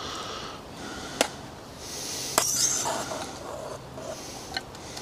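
Camping cookware clinking and scraping as cooked Spätzle are lifted out of a pot that still holds a little water. There are two sharp clinks about a second apart, the second with a hissing scrape around it, and a lighter clink near the end.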